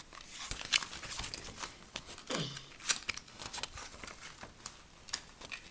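Snack packaging crinkling and rustling in quick, irregular crackles and clicks as a small packet is handled and opened.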